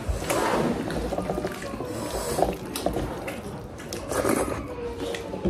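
Close-up eating sounds: fingers mixing rice and curry in a brass plate, then a large handful taken into the mouth and chewed.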